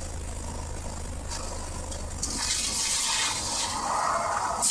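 Car driving at speed, with wind and road noise rushing over an outside-mounted camera: a low steady drone at first, then a louder hiss from about halfway through.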